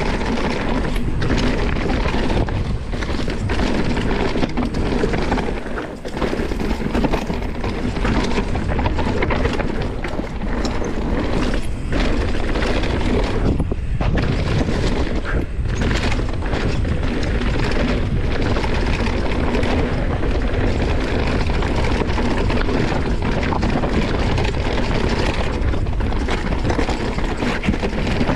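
Enduro mountain bike riding fast down a dry dirt trail: continuous tyre rumble over dirt and rocks with frequent knocks and rattles from the bike, mixed with wind buffeting the body-mounted camera's microphone.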